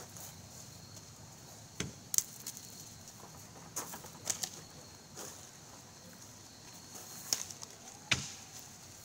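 Scattered knocks and thuds, about seven in all, a second or more apart, from the throwing games: bean bags and ladder-golf bolas landing, over a steady high background drone.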